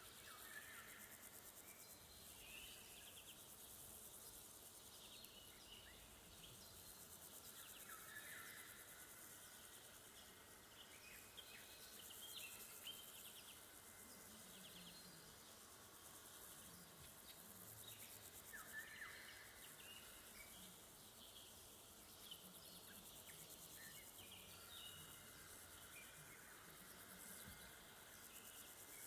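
Faint summer woodland ambience: crickets chirping steadily and high-pitched, with short bird calls scattered through it, a few falling in pitch.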